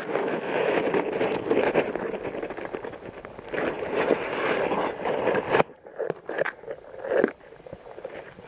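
Scraping and crackling of an underwater camera housing being moved through pond rushes, stems and water rubbing against the case. Dense and continuous for the first five or so seconds, then it drops away to quieter, scattered scrapes.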